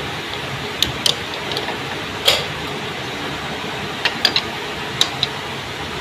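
Scattered metal clicks and taps of tools on a Honda CG 125's magneto flywheel as a puller is fitted to remove it, the loudest about two seconds in, over a steady background hiss.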